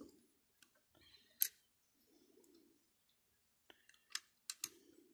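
Lego plastic pieces clicking against each other as they are handled and pressed together: one sharp click about a second and a half in, then a quick run of three clicks near the end.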